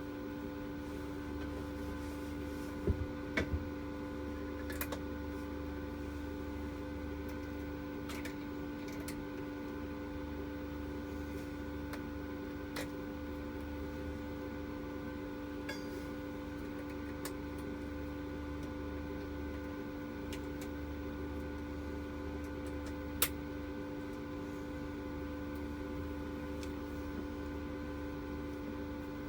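Steady electrical hum from workshop equipment, with a few scattered light clicks and taps. The sharpest click comes about 23 seconds in.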